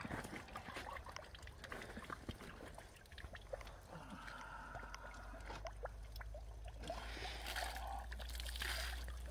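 Faint sloshing and dripping of water in a metal bathing tank as a person shifts about in the cold water, with small scattered clicks and a steady low rumble underneath.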